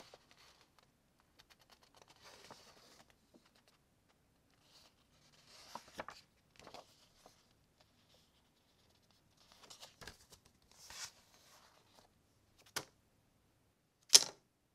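Quiet handling of paper kit instruction sheets: a few soft rustling bursts with occasional sharp clicks, then a sharp crinkle of a foil packet near the end, the loudest sound.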